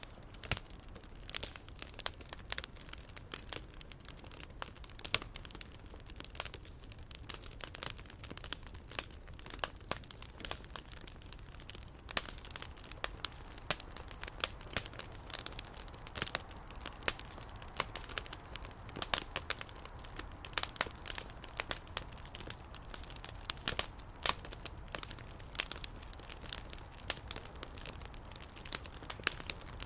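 Wood fire crackling, with dense irregular pops and snaps from the burning wooden effigy.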